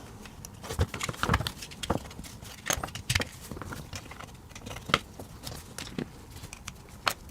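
Tools prying and scraping at a plastic remote-control case, giving scattered clicks, taps and knocks, with a sharper knock near the middle and another near the end.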